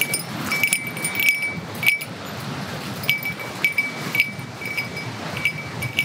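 A small metal bell ringing a clear high note, struck again roughly every half second in time with walking steps, over a steady rush of wind.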